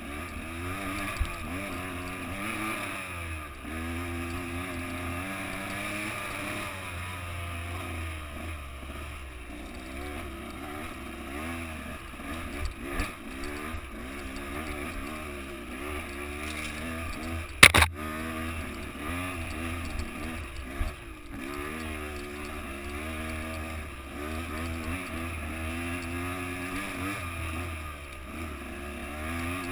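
Dirt bike engine running on a trail ride, its pitch rising and falling over and over as the throttle opens and closes. One sharp knock about two-thirds of the way through.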